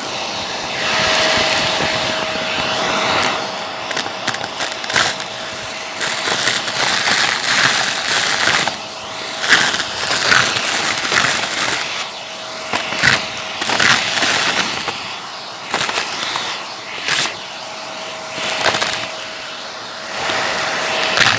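Vacuum cleaner running with a steady motor whine while sucking up crunchy debris, which crackles and rattles irregularly through the nozzle with many sharp cracks.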